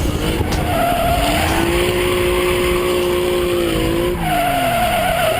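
Car tyres squealing in a long skid over running engine noise. The squeal holds a steady pitch, then drops and fades near the end.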